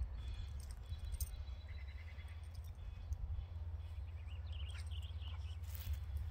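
Small birds chirping faintly in short runs over a steady low rumble, with a brief rustling hiss near the end as the dog rolls over in the grass clippings.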